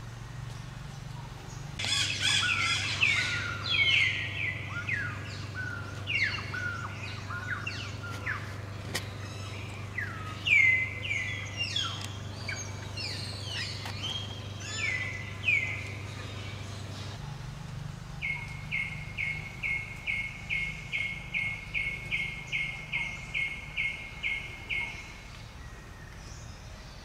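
Bird calling: repeated loud notes that slide down in pitch, then after a short pause a fast even run of short notes, about two a second, for some seven seconds.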